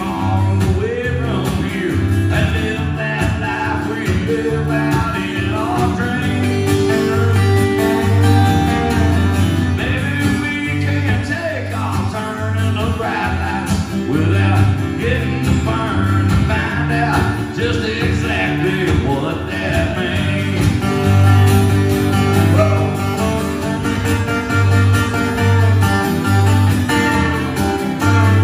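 A country song played live on two acoustic guitars, strummed steadily.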